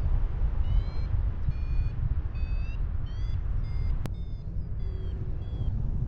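Paragliding variometer beeping in short pitched beeps about every 0.7 seconds, its climb signal showing the glider is in lift, over a heavy rumble of wind on the microphone. A single sharp click about four seconds in.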